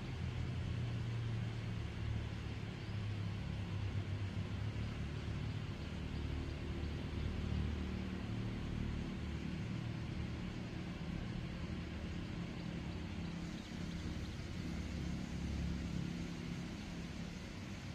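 A steady low engine rumble with a faint, even hiss above it.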